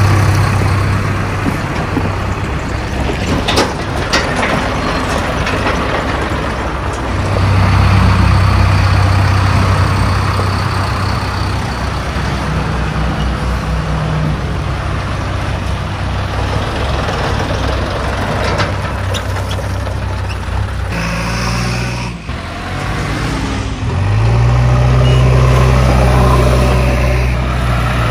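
Diesel engine of a JCB 3DX backhoe loader running as it drives past close by, its hum swelling louder twice. There are a couple of sharp knocks about four seconds in. Near the end a John Deere tractor's engine takes over.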